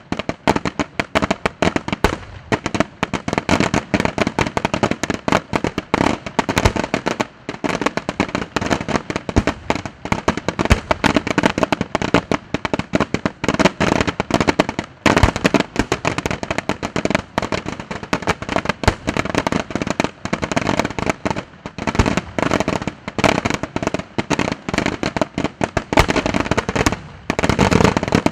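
Aerial firework shells bursting in rapid, near-continuous succession, a dense barrage of bangs and pops. Short lulls come about seven, fifteen and twenty-seven seconds in.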